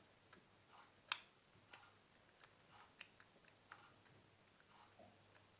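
Homemade glue-and-borax slime worked between wet hands, giving faint, irregular sticky clicks and pops, the sharpest about a second in.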